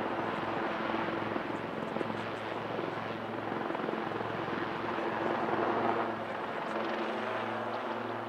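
Two AgustaWestland Wildcat HMA.2 helicopters flying a display pair: steady rotor and turbine noise with a low hum, loudest about six seconds in.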